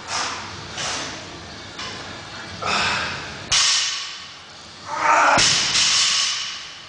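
Hard, heavy breathing of an exhausted athlete between barbell lifts: short, rough breaths about once a second at first, then longer, louder gasping breaths in the second half.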